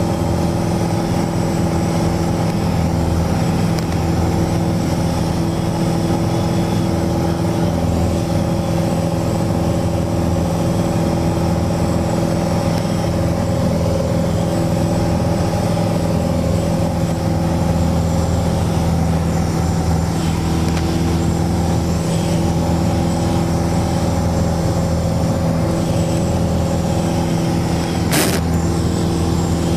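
Cabin drone of a Mooney single-engine piston plane in cruise flight, with the engine and propeller running at a steady, unchanging pitch. A single brief click comes near the end.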